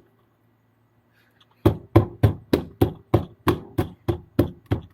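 Repeated knocking: about a dozen sharp knocks in a steady rhythm, roughly four a second, starting about a second and a half in, as something hard is struck against a hard surface again and again.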